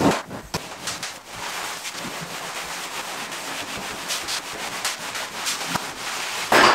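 Broom sweeping up demolition dust and debris in repeated scratchy strokes, with a louder scrape or knock at the start and another near the end.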